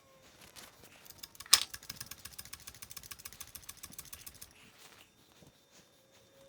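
A sharp click, then about three seconds of rapid, even clicking from a ratchet-like mechanism.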